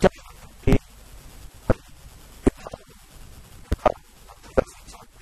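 A man speaking to the camera, his voice coming through as short clipped sounds with near-quiet gaps between them.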